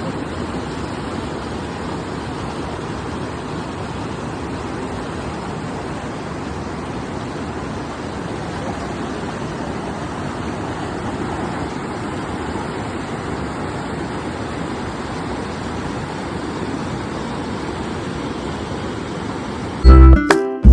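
Steady, even rush of flowing river water. Loud music with clear pitched notes comes in near the end.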